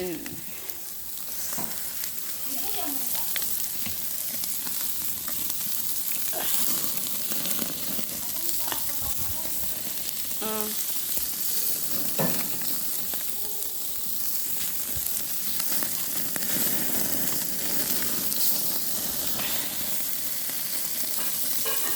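Food sizzling steadily on a hot grill.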